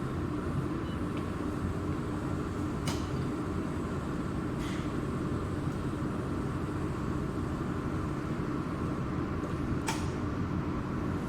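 Jewelry laser welding machine running just after being switched on: a steady hum with a few steady tones from its water-cooling system, and three faint clicks.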